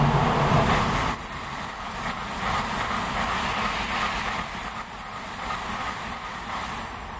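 Shinkansen bullet trains running through the station. The loud rush of an N700A set drops away about a second in as its last car clears. A steady rush with a thin high whine follows as another Shinkansen passes at speed on the farther track.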